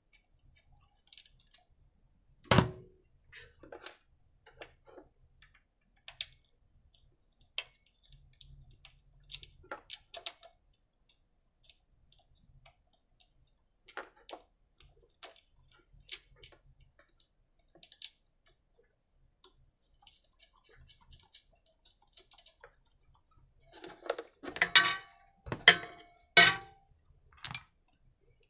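Scattered small clicks and knocks of hands working on a small petrol generator's ignition wiring and connectors, with one louder knock about 2.5 s in. Near the end comes a short run of loud metallic clattering as tools and parts are handled on the bench. The engine does not run.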